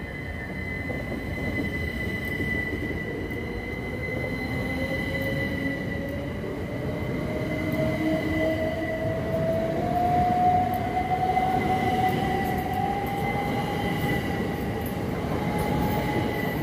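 Southern electric multiple unit pulling out along the platform. Its traction motor whine rises steadily in pitch as it gathers speed, over a steady high tone and the rumble of the wheels on the rails.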